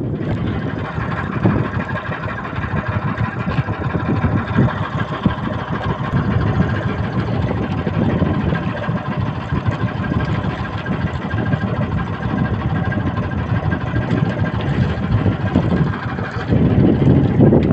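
A small fishing boat's engine idling steadily, a continuous low rumble with a faint steady whine above it.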